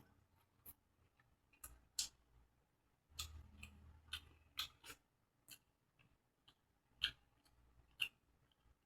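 Close-miked eating sounds: scattered sharp wet smacks and clicks of a mouth chewing food, about a dozen at uneven intervals, with a brief low rumble about three seconds in.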